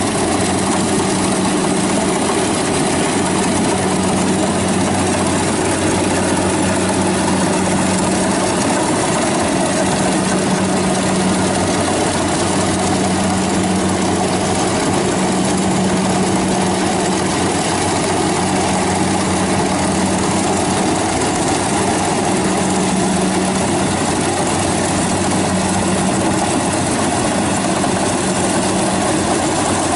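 Rice combine harvesters running steadily while cutting and threshing rice: a continuous loud engine drone with a low hum that swells and fades every second or two.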